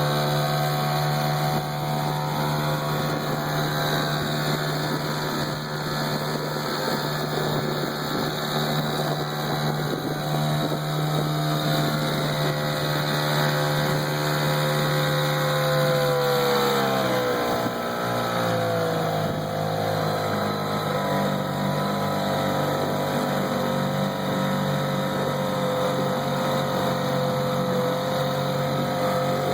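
1973 Mercury Model 40 4 hp single-cylinder water-cooled two-stroke outboard running steadily. A little past halfway the engine speed falls, and it settles into a steady lower-speed run.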